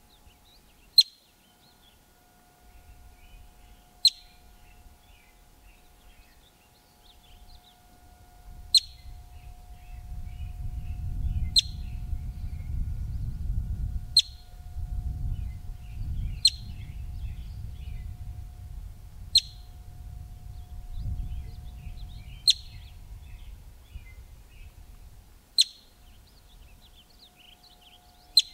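Yellow-bellied marmot giving its alarm call: about ten short, sharp, high chirps, one every two to three seconds. A low rumble rises under the calls through the middle and fades toward the end.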